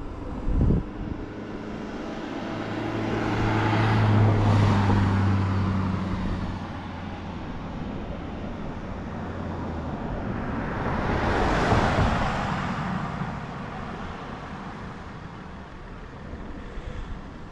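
Two road vehicles passing close by, one after the other. Each swells and fades with tyre and engine noise: the first, about four seconds in, carries a low engine hum, and the second peaks about twelve seconds in.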